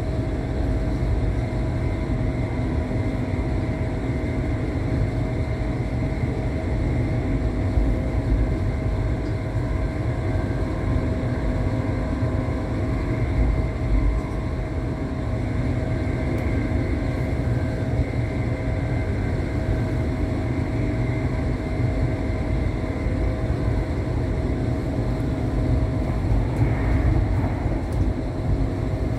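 Passenger train heard from inside the carriage: a steady low rumble with a constant hum over it.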